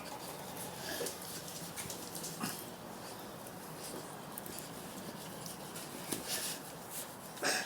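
A dog eating a piece of raw meat, with faint chewing sounds now and then.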